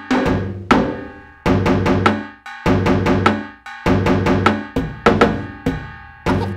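Rhythmic percussive music: a run of sharp struck notes that ring briefly and fade, over a deep bass drum.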